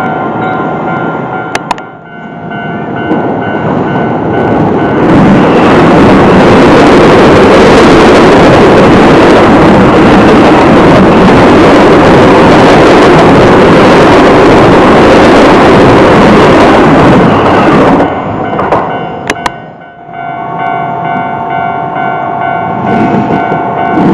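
Japanese level crossing warning bell ringing, then a Keio Line electric train passing over the crossing, loud and steady for about thirteen seconds. The crossing bell rings again near the end.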